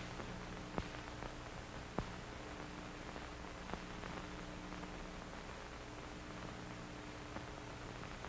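Faint steady hiss and low hum of an old film soundtrack, with a few sharp clicks, the loudest about two seconds in.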